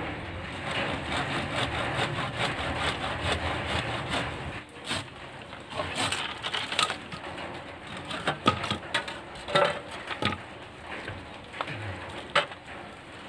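Hand saw cutting through a green bottle bamboo stem: a dense run of rasping strokes for about the first four and a half seconds, then slower, separate sharp cracks and scrapes of the bamboo as the cut goes through and the stem parts in two.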